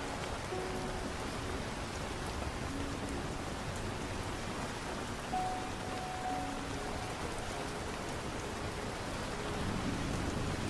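Steady rain, an even hiss of drops, with a few soft held musical notes drifting underneath in a slow melody.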